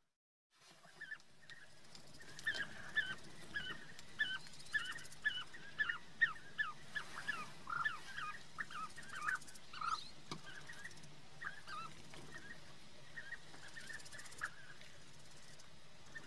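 Bee-eaters calling: a busy run of short, rolling calls, several a second, that thins out to scattered calls after about ten seconds.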